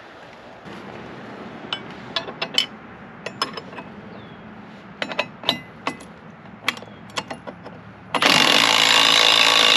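Sharp, irregular metal clicks of a wrench working the outboard's mounting bolts. About eight seconds in, a loud electric motor starts suddenly and runs steadily: the outboard's power tilt-and-trim motor moving the Mercury outboard.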